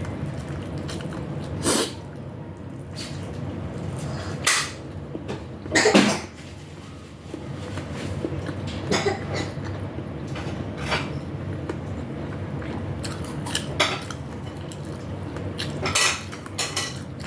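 Utensils knocking and clinking against a plate and dishes during a meal, about eight short sharp knocks at irregular intervals over a steady low hum.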